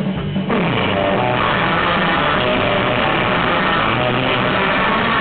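Surf rock band playing live: loud electric guitar (Fender Stratocaster) over drums and bass. About half a second in, the sound thickens into a dense, loud wall of guitar.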